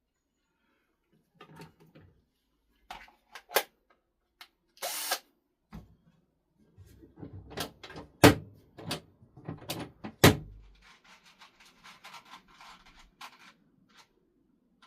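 Pieces of wood and workshop hardware being handled and set down on a bench: scattered knocks and clatter, a short scrape about five seconds in, and two sharp loud knocks about two seconds apart. This is followed by a couple of seconds of rough rustling and scraping.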